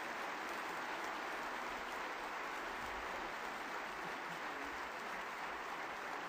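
Large concert-hall audience applauding steadily, an even wash of many hands clapping.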